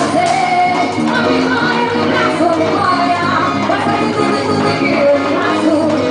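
Loud festa junina quadrilha dance music with singing.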